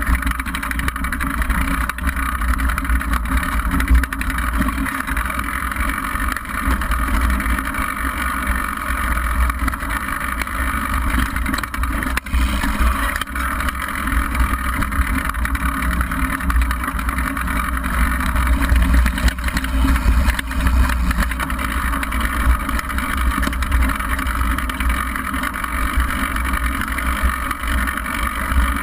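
Wind buffeting the microphone of a handlebar-mounted action camera, over the steady rumble and rattle of a downhill mountain bike rolling fast over a rocky dirt trail.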